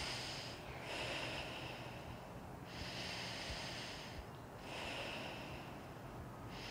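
Slow breaths drawn in and blown out through one nostril while the other is held shut with a finger: alternate nostril breathing. Each in- or out-breath is a soft hiss lasting one to two seconds, with short gaps between.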